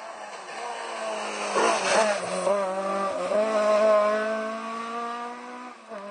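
Rally car engine working hard through a tight bend: the revs jump up and down about a second and a half in as the car slides through, then climb steadily as it accelerates away, dropping off just before the end.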